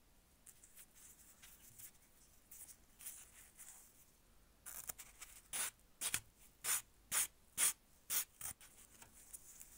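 Abrasive sanding sponge rubbed over a small brass lighter part: faint scratching at first, then about halfway in a run of about seven quick, louder strokes, about two a second.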